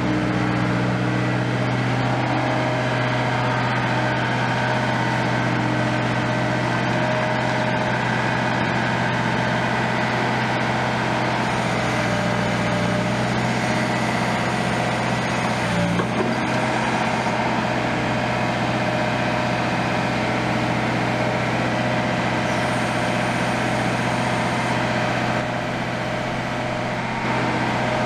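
Liebherr 924 wheeled excavator's diesel engine running steadily with a low hum while the boom and arm are worked, with one brief knock about halfway through.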